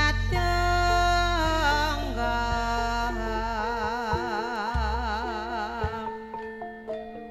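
Javanese ledek (tayub) gamelan music: a held melody line, sung or played, moves from note to note and takes on a wide, even vibrato partway through, over deep bass tones. After about six seconds it thins to sparse struck notes.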